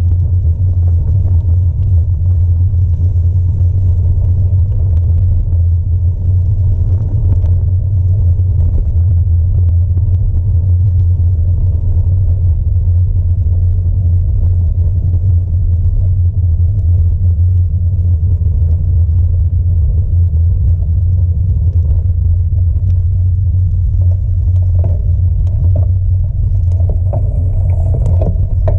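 Steady low rumble of a bicycle riding over a gravel forest track, picked up through a handlebar-mounted camera, with a few light rattles near the end.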